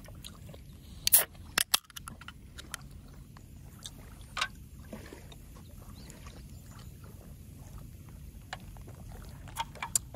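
Gentle lapping of lake water under a steady low outdoor hiss, with a few sharp clicks about a second in and two light knocks near the end as an aluminium drink can is set down on the ground.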